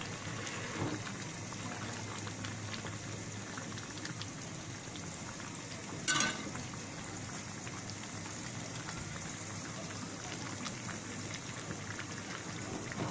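Beef curry bubbling steadily in a pan in the juices the meat has released while it is braised with spices. There is one sharp click about six seconds in.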